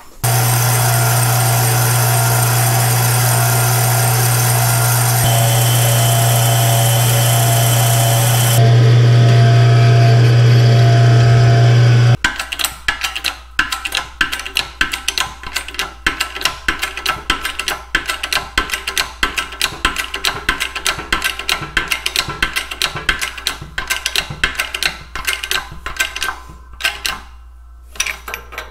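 A metal lathe runs steadily for about the first twelve seconds, turning down a bronze bushing, with its pitch and level stepping up twice. It then stops abruptly and gives way to a long run of irregular clicks and creaks as a hydraulic shop press forces the bushing into the cast-iron clutch pedal.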